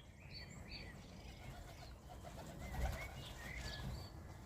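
Small garden songbirds chirping faintly in short scattered calls, with a soft low rustle a little under three seconds in.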